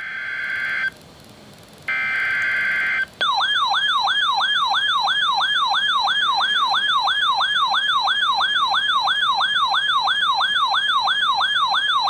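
RadioShack weather radio receiving a Severe Thunderstorm Watch alert: two short bursts of screechy digital data tones, the EAS/SAME alert header, then, about three seconds in, the radio's alert tone starts, warbling up and down about three times a second.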